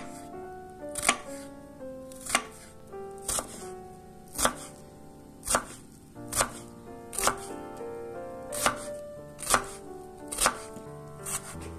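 Chef's knife chopping red onion on a wooden cutting board, a crisp knock about once a second, over soft background music.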